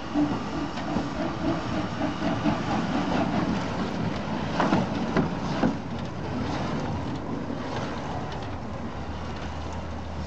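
Porter narrow-gauge steam locomotive running slowly along the track, its exhaust chuffing in a steady rhythm, with a few sharp clicks about halfway through. A steady low hum sets in near the end.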